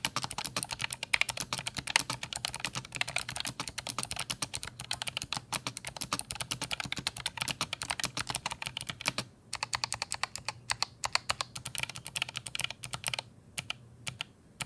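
Fast typing on an ASUS ROG Claymore II mechanical keyboard fitted with ROG RX Blue clicky optical switches, each keystroke giving a sharp click. The typing breaks off briefly about nine seconds in and thins to scattered keystrokes near the end.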